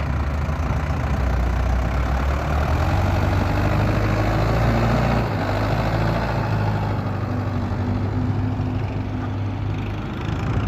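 Heavy diesel engine running steadily at low revs, with a slight change in its low note about halfway through.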